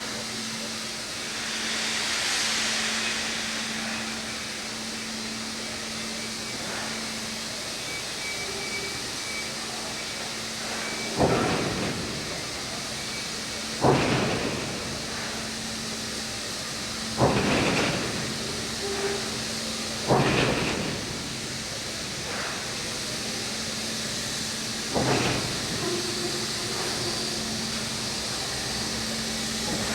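Steam locomotive 3801 standing with a steady hiss of steam and a low hum, then five loud, sudden steam bursts a few seconds apart, each dying away over about a second.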